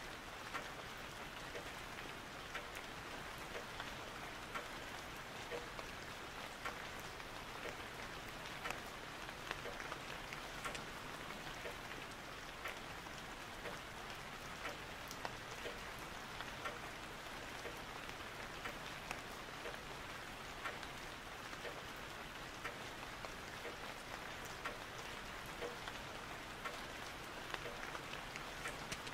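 Steady rain: an even hiss with many small drop ticks scattered through it, unchanging throughout.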